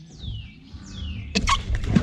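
Two descending bird whistles, then a quick run of knocks and scuffs on a boat deck as a man loses his footing, just before he falls backward into the water.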